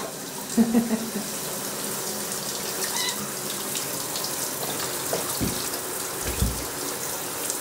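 Shower running: a steady hiss of water spray falling into a bathtub, with a couple of low thumps near the end.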